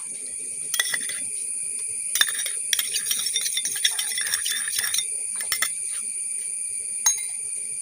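A spoon stirring honey into juice in a small cup, with irregular quick clinks and taps against the cup's sides.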